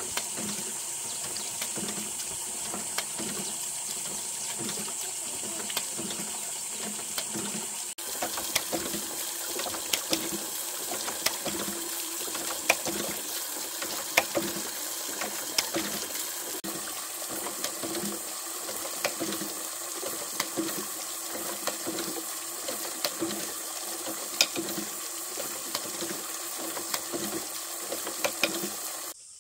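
Water jetting from a pipe onto a small bamboo water wheel and splashing down into a pond, a steady rush and patter. Scattered sharp knocks and a faint regular beat, about once or twice a second, come from the wheel's bamboo parts as it turns.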